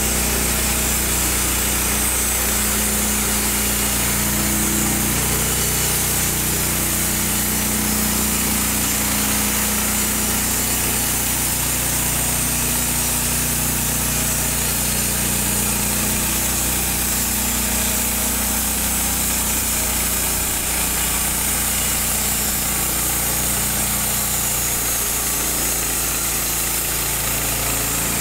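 Taiga band sawmill driven by a Honda GX390 single-cylinder four-stroke petrol engine, running steadily under load as its band blade cuts lengthwise through a log.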